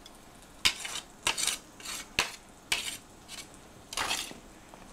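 Slotted metal spatula scraping across a sheet pan and clinking against a ceramic plate as roasted squash is lifted and served, in a run of about seven short strokes.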